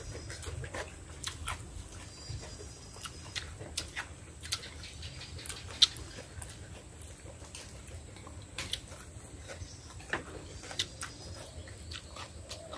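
Two people eating with chopsticks from small ceramic bowls: chewing, with irregular sharp clicks of chopsticks tapping the bowls.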